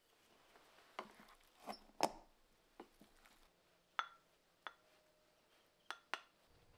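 Rice paddle scooping cooked rice from a rice cooker's inner pot into a ceramic bowl: a string of about eight light clicks and taps, the loudest about two seconds in, with a couple of short ringing clinks of the paddle against the bowl or pot.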